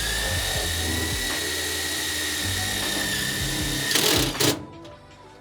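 Power drill running steadily at a constant high whine for about four seconds, then stopping with a couple of short loud bursts.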